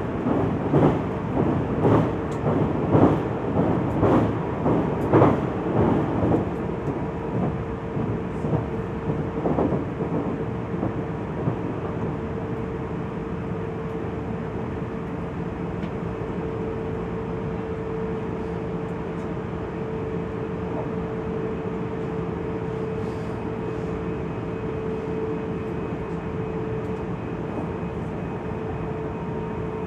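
JR Central 373 series electric train running, heard from inside the passenger car: wheels clacking over rail joints about once a second for the first six seconds, then a steady rolling rumble with a steady hum tone.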